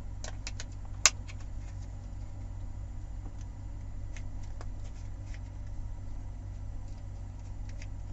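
Low steady hum with a few light clicks near the start, the sharpest about a second in.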